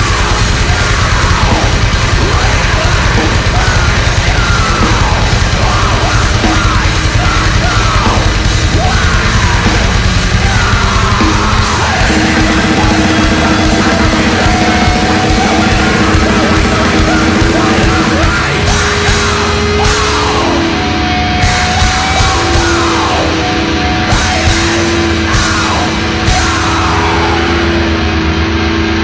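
Heavy metal song played by a full band: fast, dense drumming under distorted guitars and yelled vocals. From about halfway, long held guitar notes ring over the rhythm.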